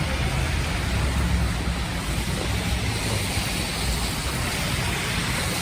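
Steady city street noise of traffic, with wind rumbling on the microphone in uneven gusts.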